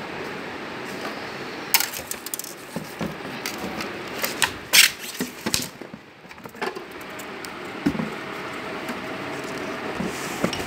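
Packaging being handled as a juicer is pulled out of its box: cardboard, polystyrene foam and bubble wrap creak, crackle and knock in scattered sharp clicks, the loudest about halfway through.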